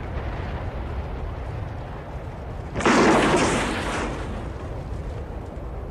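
A steady low rumble, then about three seconds in a sudden loud explosion that dies away over a second or so.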